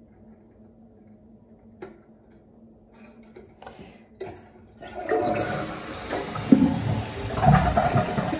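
A few light clicks as the lift chain is hooked onto the new toilet tank lever, then about five seconds in the toilet is flushed: a loud rush and gurgle of water emptying from the tank into the bowl.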